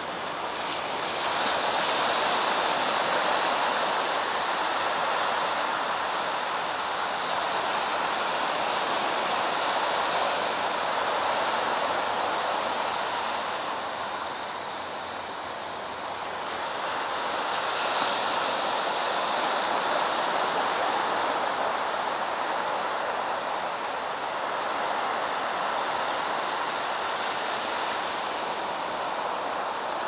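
Steady rush of small waves washing onto a sandy beach, swelling and easing gently, with a brief lull about halfway through.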